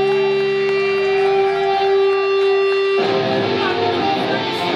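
Live rock band, electric guitar to the fore: a single note is held ringing, then about three seconds in the sound changes suddenly to a denser, noisier guitar wash.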